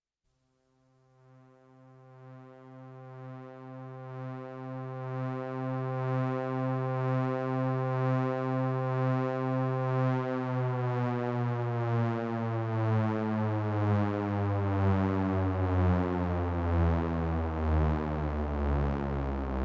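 Synthesizer music fading in from silence: a low sustained tone with many overtones, pulsing steadily. About halfway through it turns into a sequence of changing low notes.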